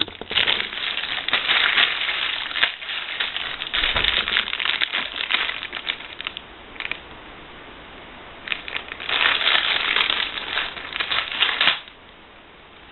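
Crinkly packaging of a USB cable crackling as it is opened and unwrapped by hand. It comes in two long stretches with a short pause between, and stops about a second before the end.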